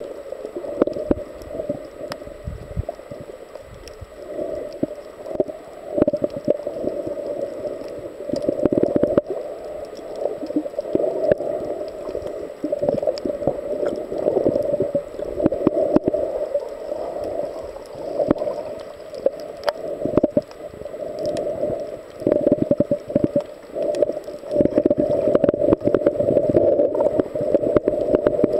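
Muffled water noise picked up by a submerged camera's microphone: a murky rush that swells and fades irregularly, dotted with many small clicks and crackles.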